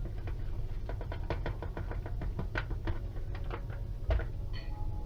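Quick, irregular light taps, several a second, as powdered sugar is shaken and sprinkled over set hard candies, with one heavier knock about four seconds in.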